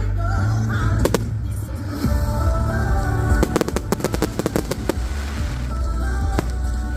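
Fireworks going off over loud music with a heavy bass. A single bang comes about a second in, then a rapid string of sharp cracks between about three and five seconds.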